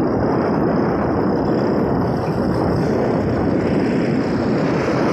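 Steady rushing noise from riding along a road: wind buffeting the microphone and road noise from the moving vehicle, with no distinct engine note.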